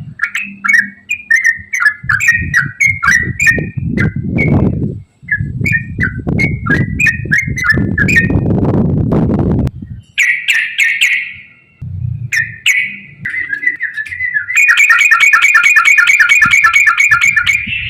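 Yellow-vented bulbul (trucukan) singing: a string of short chirping phrases, then, about three seconds from the end, a fast unbroken run of rapidly repeated notes, the 'ropel' song. A low rumble sits under the first half.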